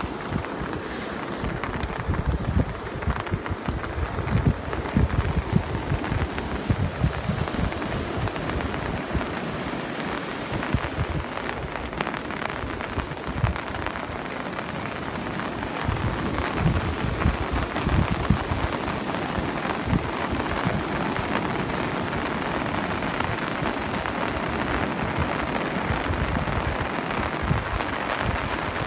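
Ocean surf breaking and washing up the beach as a steady rushing noise, with gusty wind buffeting the microphone in low rumbles, strongest in the first few seconds.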